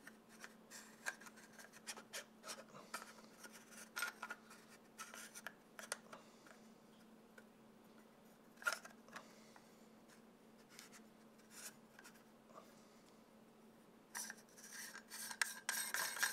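Faint clicks and scrapes of a filter step-up ring being turned and threaded onto a camera lens's front, with a run of louder clicks near the end.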